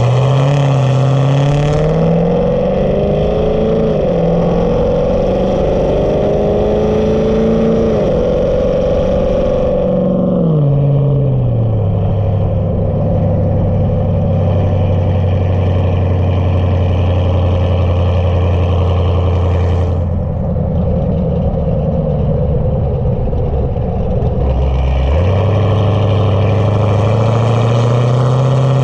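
Camaro SS V8 fitted with a Texas Speed stage 1 VVT camshaft, running on the road. The revs climb over the first several seconds, drop sharply as it backs off about ten seconds in, then hold at a steady cruise before the engine picks up and the pitch rises again near the end.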